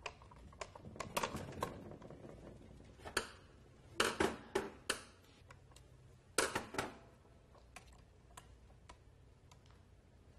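Irregular light clicks and clacks of a wall light switch and its wires being handled, as the wires are worked free of the switch's push-in terminals, with the loudest clusters about four and six and a half seconds in.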